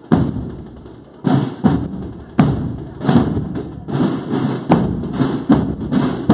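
A procession marching band's drum section playing a slow march: heavy bass-drum strokes struck with mallets, with a crisper snare-like rattle between them, the strokes coming closer together after about a second.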